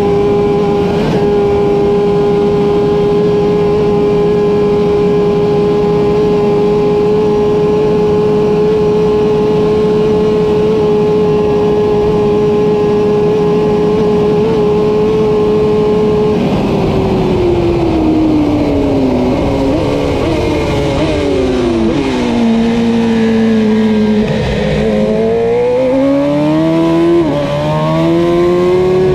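Kawasaki Ninja ZX-10R's inline-four engine held flat out at a steady high pitch, with heavy wind rush, for about the first half. Then the pitch drops in steps as the rider brakes and shifts down to second for a corner, before climbing again as he accelerates out and shifts up near the end.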